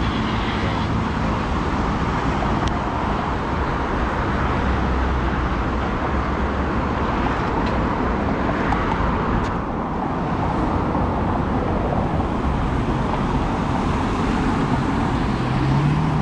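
Steady city street traffic: cars going by with continuous engine and tyre noise and a low engine hum. Near the end one engine briefly rises and falls in pitch.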